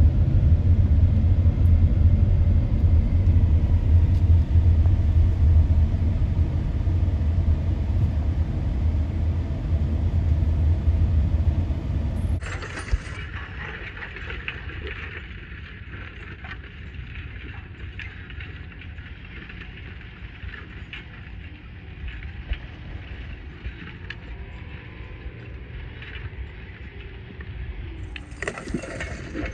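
Steady low road rumble of a car driving, heard from inside the cabin. It cuts off abruptly about twelve seconds in, giving way to a quieter, thinner steady hiss.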